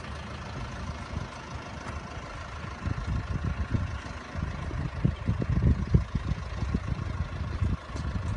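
Heavy truck engine running steadily, with uneven low thumps joining in from about three seconds in.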